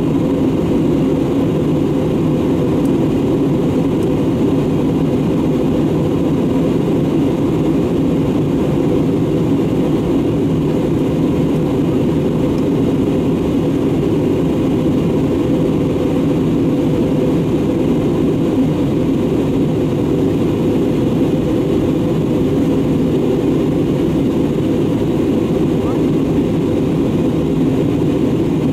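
Steady, unchanging engine noise from an Airbus A320neo airliner, even in level and heaviest in the low-to-middle range.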